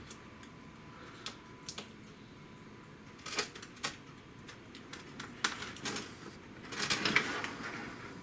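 Scattered clicks and taps of hands handling the opened induction heater's circuit board and casing. They grow busier partway through, with a short run of rattling and rustling about seven seconds in.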